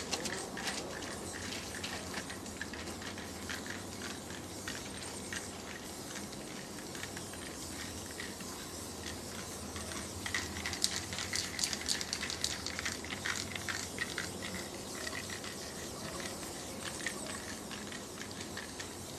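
Aerosol spray paint cans hissing in repeated bursts, with scattered crunches and clicks of footsteps on gravel track ballast. The hissing and clicking are densest a little past the middle.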